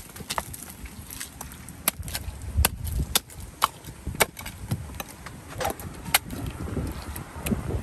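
A big knife scraping the scales off a large fish on a wooden chopping block, making irregular sharp clicks and taps about one or two a second. A rising rush of noise starts near the end.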